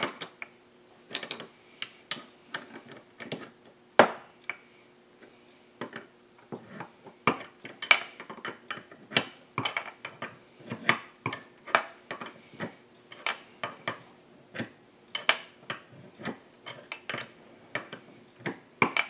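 Steel hand wrenches clicking and clinking in short irregular strokes as they turn the bolt of a crankcase puller, drawing the two halves of a Husqvarna 372 chainsaw crankcase together.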